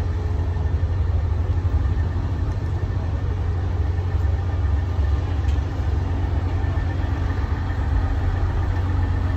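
Diesel semi-truck engine idling: a steady low rumble.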